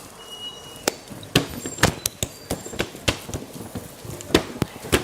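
Irregular sharp clicks and knocks of work at a street-food stall, a few a second and getting busier toward the end, with a brief high beep-like tone in the first second.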